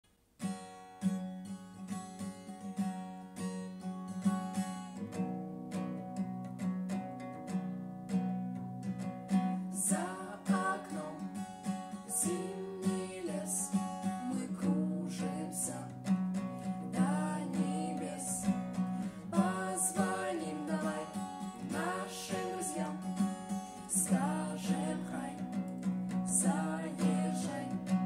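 Acoustic guitar strummed steadily, starting about half a second in, with singing voices joining about ten seconds in.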